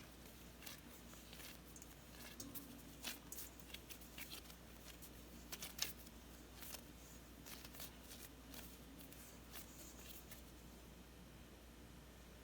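Faint, scattered light clicks and taps, irregular and spread over the first ten seconds or so, then only a faint steady background.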